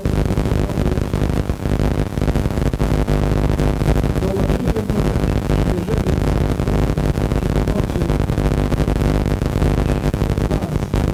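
Lakhovsky-type multi-wave oscillator running: a loud, steady electrical buzz, a stack of mains-hum tones under a dense crackle.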